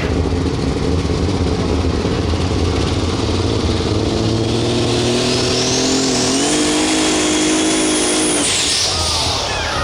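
Pulling-vehicle engine running hard under load. From about four seconds in, a high whine climbs steadily and holds while the engine's pitch steps up. Just past eight seconds the power is cut and the whine falls away.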